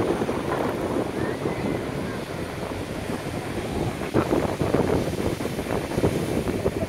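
Ocean surf breaking and washing on the shore, with wind buffeting the microphone.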